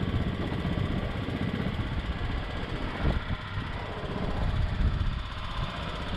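A small engine running steadily with a rapid low pulsing, with a brief knock about three seconds in.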